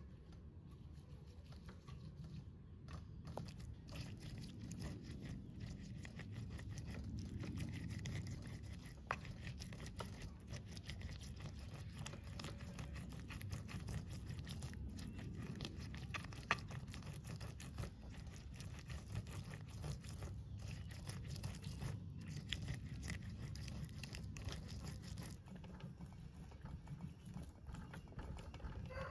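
Stone pestle grinding and crushing fried peanuts against a volcanic stone mortar: a steady gritty scraping with many small clicks and knocks.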